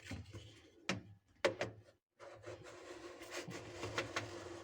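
Plastic lint filter of a Samsung top-load washing machine being handled and pushed back into its slot on the drum. There are a few sharp knocks and clicks in the first two seconds, then a longer stretch of plastic rubbing and scraping as it is worked into place.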